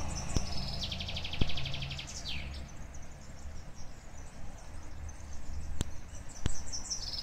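A small songbird singing: a fast high trill that ends in a downward-sweeping note about two seconds in, and the song starting again near the end. A steady low rumble runs underneath.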